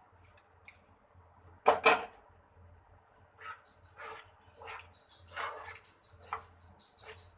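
Spatula stirring and scraping a thick besan and sugar-syrup mixture in a metal pan, in repeated strokes that quicken in the second half. There is one loud sharp sound a little under two seconds in.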